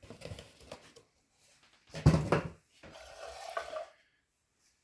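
Knocks and rubbing from a small toy jigsaw being handled and turned over, with one louder thump about two seconds in.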